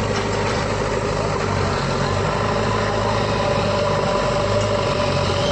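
Bulldozer's diesel engine idling steadily at constant speed.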